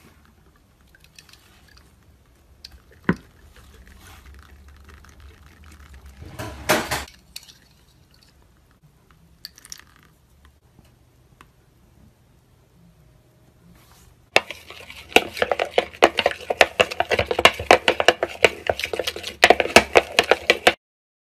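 A metal spoon stirring slime against a bowl, a dense run of quick clinks and sticky clicks that starts about two-thirds of the way in and stops just before the end. Before that it is mostly quiet, with a single sharp knock and a brief rush of noise.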